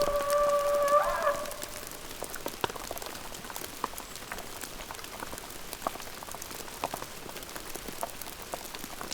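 A held, horn-like tone of several notes fades out about a second in. Then come sparse, irregular drip-like ticks over a soft hiss, like raindrops falling.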